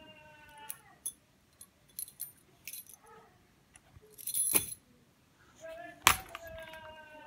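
A bunch of metal keys jangling and clinking in a toddler's hand, in several sharp shakes; the loudest comes about six seconds in. Near the end a drawn-out, slightly falling tone sounds under the jangling.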